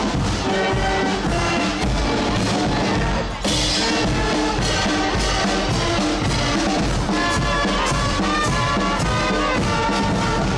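Guggenmusik carnival band playing as it marches past: trumpets, trombones, sousaphone, saxophones and clarinets over a steady beat of bass drum and cymbals, with a loud cymbal crash about a third of the way in.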